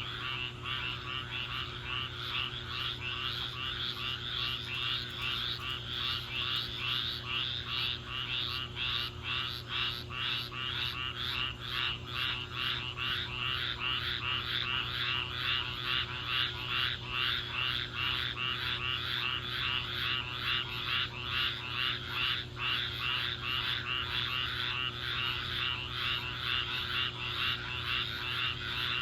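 A chorus of thousands of frogs calling after a rainstorm: dense, rapid pulsing calls overlapping without a break, over a faint low steady hum.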